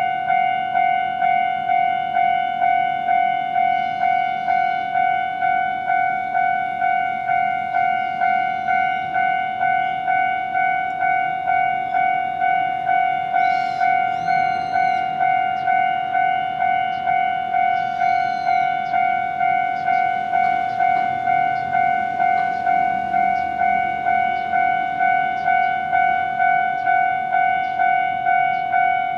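Japanese railway level-crossing warning bell ringing in a steady, even beat of about two strokes a second: the crossing's alarm sounding while a train approaches or passes.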